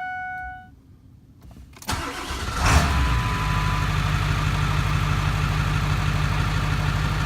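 A short dashboard chime, then the Ford F350 Power Stroke diesel cranks on its freshly rebuilt starter and fires right up about three seconds in, settling into a steady idle. The starter now engages and turns the engine instead of just clicking, so the worn starter contacts were the fault.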